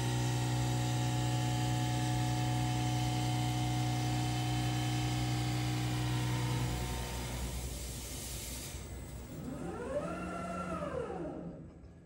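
Diamond cut wheel lathe taking a cutting pass across an alloy wheel face: a steady machine hum with a high hiss, the sound of an even tenth-of-a-millimetre cut all across the face. The cut dies away about seven to nine seconds in, and a short whine then rises and falls in pitch.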